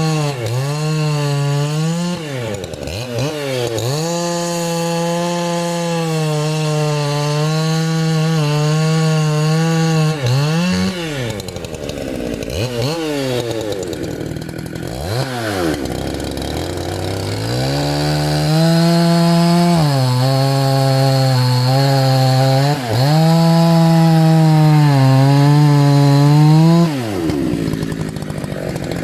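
Dolmar PS-9010 90cc two-stroke chainsaw running at full throttle, cutting wood. The revs drop away and climb back several times; in the middle and again near the end it falls back to idle.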